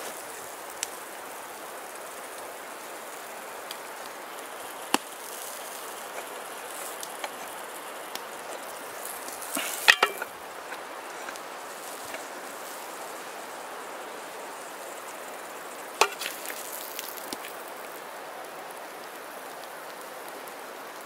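A cast-iron pie iron knocks and clinks against a metal plate a few times as a toasted sandwich is tipped out of it. The sharpest clinks come about halfway through and again about three-quarters through, over a steady background hiss.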